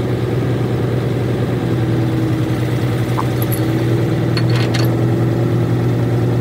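An engine idling steadily, with a few short clicks about four and a half seconds in.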